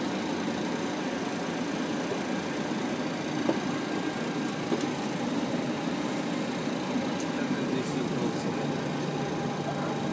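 Steady cockpit hum of a Boeing 737-800 taxiing, with a couple of faint clicks midway.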